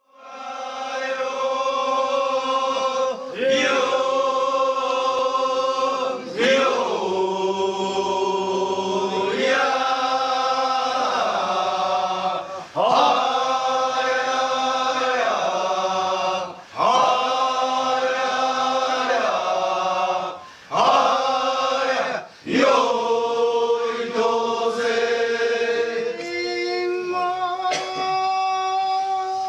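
Kiyari, the Japanese festival work song, chanted by a group of men: long drawn-out phrases with held, sliding notes, broken by short pauses every few seconds.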